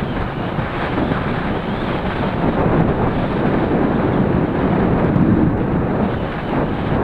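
Steady wind rush and buffeting on the action camera's microphone from riding a bicycle at about 32 km/h, with road and tyre rumble underneath. The rush swells and eases a little without stopping.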